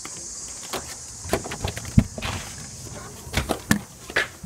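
A few sharp knocks and thumps from a door being handled and opened, the loudest about two seconds in. Behind them is a steady high drone of insects.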